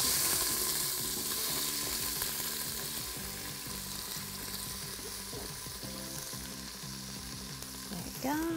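Diced onion and celery hitting hot butter and olive oil in an Instant Pot's inner pot on the sauté setting: a sudden loud sizzle as they go in, easing slowly into a steady frying sizzle.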